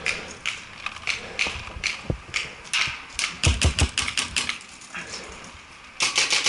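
Paintball markers firing: an irregular series of sharp pops, coming in a quick string around the middle, with a few duller thuds among them.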